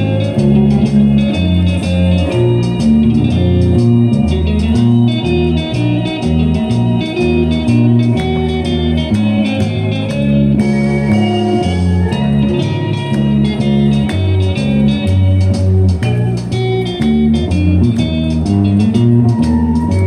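Instrumental music with guitar, a walking bass line and a steady beat.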